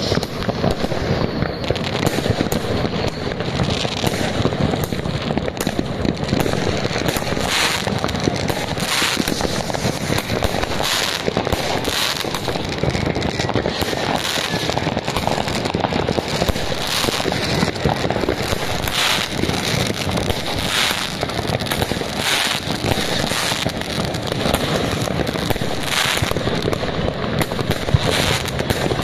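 Many consumer fireworks going off at once: rockets, ground fountains and firecrackers. They make a steady crackling din with frequent sharp bangs at irregular intervals.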